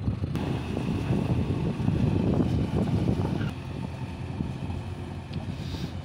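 JCB 3DX backhoe loader's diesel engine running as the machine drives away, under heavy wind buffeting on the microphone. The rumble drops noticeably about halfway through.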